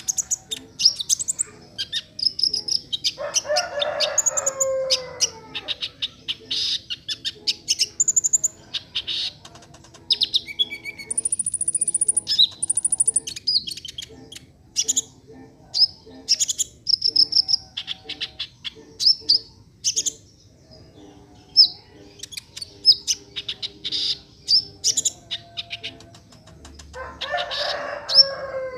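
Brown-throated sunbird (kolibri ninja) singing hard: a dense run of short, sharp high chirps and trills, with two lower, longer bending calls, one near the start and one near the end, and two thin high whistles about halfway through. These are calls it has learned from other birds.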